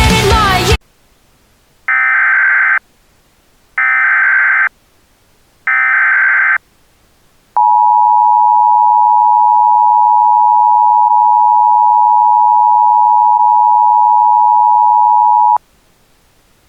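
Emergency Alert System tones. Three short bursts of SAME digital header data, each about a second long, are followed by the two-tone EAS attention signal held steady for about eight seconds. Together they mark the start of an emergency alert broadcast.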